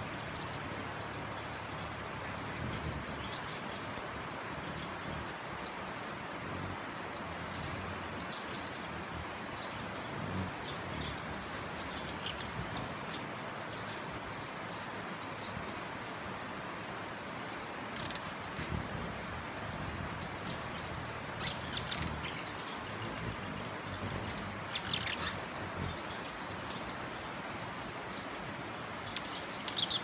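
Birds chirping in runs of short, high chips, with a few sharper, louder calls scattered through, over a steady background hiss.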